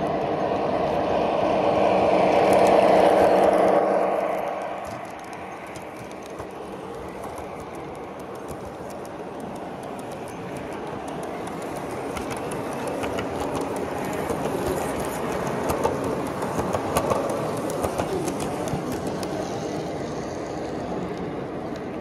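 Model train running on a layout: a loud whirring hum swells as it passes close and drops away about four and a half seconds in. The trains keep running more quietly after that, with light clicking from the wheels over the track, and the sound builds again later.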